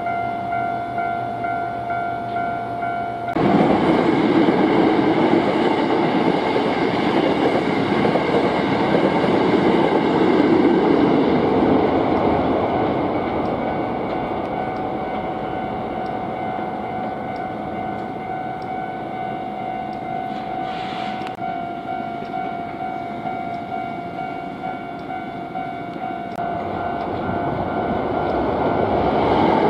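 Hankyu Kyoto Line train passing a Japanese level crossing, its wheels rumbling over the rails, while the crossing's electronic warning bell keeps ringing. The train noise starts abruptly a few seconds in, is loudest over the next several seconds, eases off, then builds again near the end.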